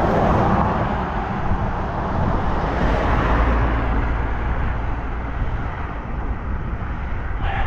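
Steady rush of wind and road traffic heard while riding a bicycle along a highway shoulder, with a low rumble that swells about three seconds in.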